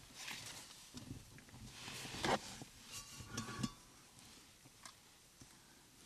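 A grazing herd of blue wildebeest and zebra: scattered low, short animal calls, with a louder short burst a little over two seconds in.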